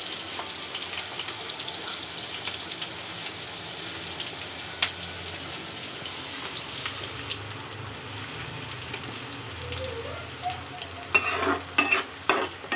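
Sliced onions sizzling steadily in hot oil in a kadhai, frying until they brown. Near the end come several sharp clacks of a stirring spoon against the pan.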